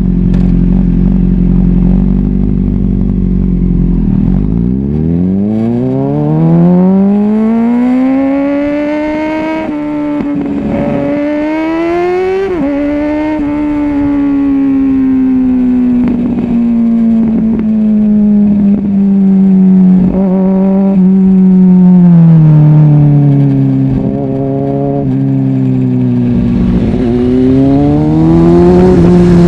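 2005 Kawasaki ZX-6R 636's inline-four engine running under way. It starts low and steady, and about five seconds in the revs climb in a long rising pull. Brief breaks around ten and thirteen seconds are gear changes, then the pitch slowly falls away before rising again near the end.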